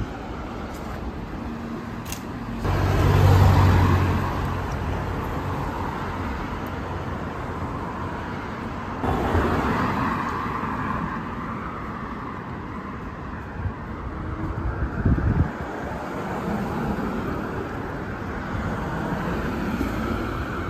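Street traffic: cars driving past close by over a steady traffic hum. The loudest pass comes about three seconds in with a low engine note, another car goes by about nine seconds in, and there are a few low thumps a little later.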